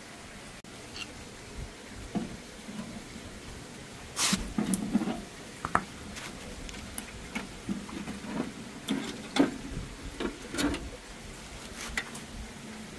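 Hands handling a BMW X5 E70 headlight assembly whose plastic lens has been cut free: scattered plastic clicks and taps with light rustling. The loudest clicks come about four seconds in and again past nine seconds.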